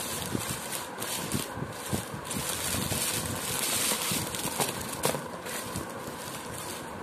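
Crinkling and rustling of a pile of twist-wrapped Eclairs sweets in shiny plastic wrappers, shuffled and spread by hand on a tabletop. The crinkling comes in uneven surges, with faint ticks as sweets knock together.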